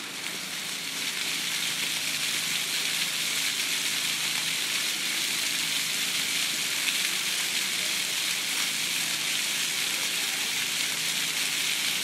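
Water fountain jets spraying and splashing: a steady hiss of falling water that swells over the first second or two, then holds.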